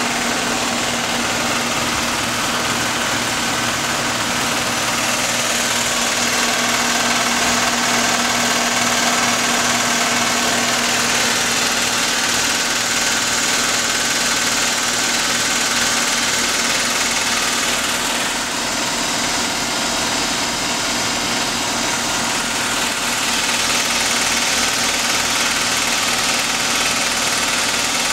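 Air conditioner running with a steady, loud mechanical whir.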